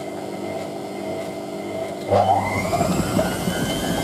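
Hotpoint 9530W front-loading washing machine running with a load of towels: the motor hums steadily as the drum turns, then about two seconds in it kicks up into a spin with a sudden louder rumble and a rising motor whine. The machine's shock absorbers are worn, and the running sounds angry.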